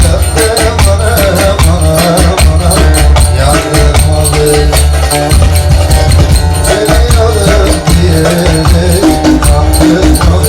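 Turkish folk dance music: a wavering melody over a heavy bass beat, with constant rhythmic jingling of zil (small cymbals) and other percussion.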